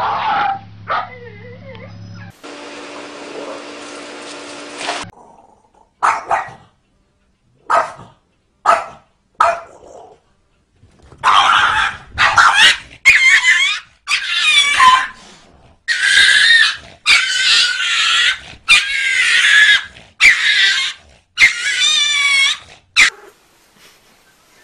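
A dog yelping and whining, many loud high-pitched cries in quick succession through the second half. A few short sharp sounds come before them.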